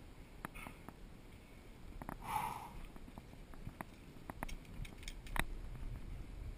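Scattered sharp snaps of airsoft gunfire, a dozen or so irregular clicks, the loudest about five and a half seconds in. A short rushing noise comes about two seconds in.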